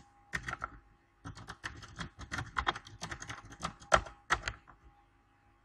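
Typing on a computer keyboard: a quick, uneven run of key clicks that stops about four and a half seconds in.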